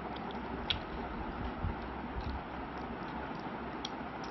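Eating by hand: fingers working curry and rice and food being chewed, with a few small sharp clicks, the loudest about two-thirds of a second in and another near the end, over a steady background hiss.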